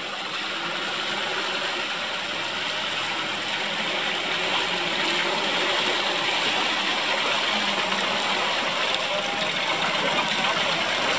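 Engine of an old Land Rover Series off-roader running steadily at low speed as it crawls through a muddy stream.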